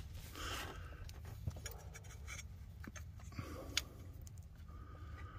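Light clicks, scrapes and rubbing as a fuel injector and its small plastic parts are handled and pushed into place in the engine's cylinder head, with one sharper click about two-thirds of the way through.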